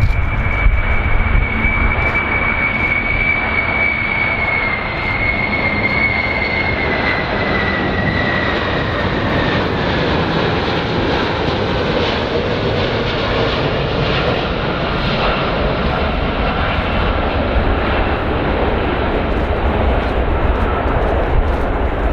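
Fixed-wing aircraft engines running steadily, a loud rushing noise with a high whine that slowly falls in pitch over the whole stretch.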